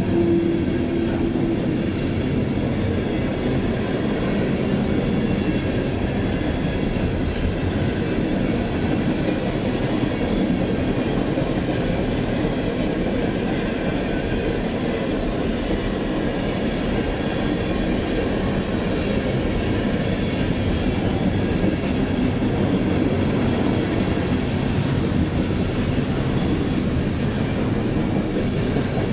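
Freight train cars rolling past on the rails, a steady, even noise throughout. A single steady tone dies away in the first two seconds.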